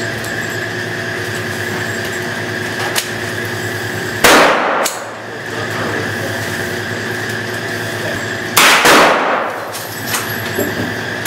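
Thureon Defense 9mm carbine fired on an indoor range: a single shot about four seconds in, then two shots in quick succession near the end, each with a short echo. A steady hum runs underneath.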